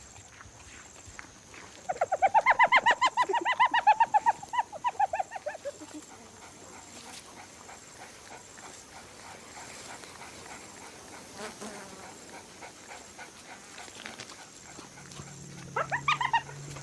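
An animal's rapid run of high, yelping calls, about four a second for some four seconds and trailing off, then a shorter run of the same calls near the end.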